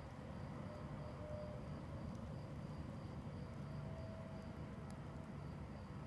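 Outdoor night ambience: a low, steady rumble with a faint, steady, high-pitched insect trill above it.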